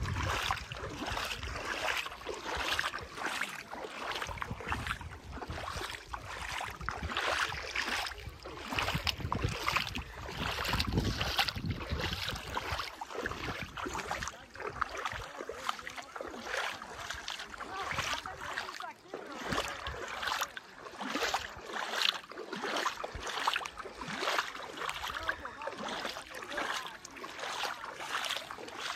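Footsteps of someone walking, about one or two steps a second, with wind buffeting the microphone through roughly the first half.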